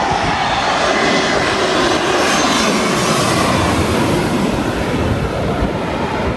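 Twin-engine jet airliner on landing approach, gear down, passing low overhead: loud, steady jet-engine noise whose pitch slides downward as it goes past.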